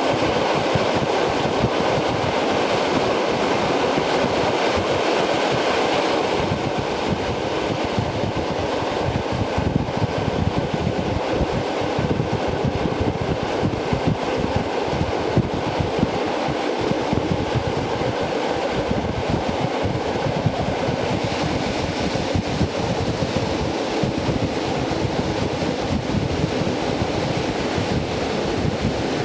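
EN57 electric multiple unit running at speed, heard on board: a steady rumble of wheels on rails with irregular knocks from the track and a faint steady high tone. The rumble is a little louder for the first few seconds.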